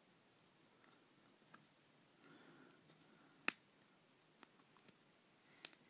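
Small clicks and light taps from handling the parts of a disassembled ball mouse, with one sharp click about three and a half seconds in and another near the end.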